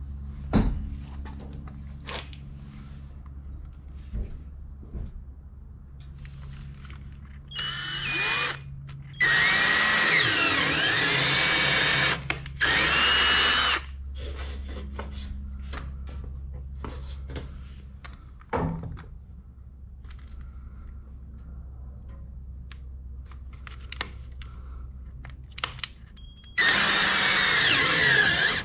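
Cordless drill boring holes into a plastic gray water tank to fit tank level sensors. It runs in three bursts (two close together about nine seconds in, one near the end), the motor whine rising and falling as the bit cuts. Between bursts a low steady hum and scattered clicks and knocks.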